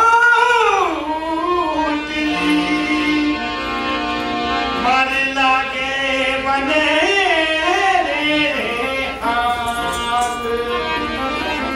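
A male folk singer sings a Rajasthani Kalbeliya song into a microphone in long, gliding, ornamented phrases, with a harmonium holding sustained notes underneath.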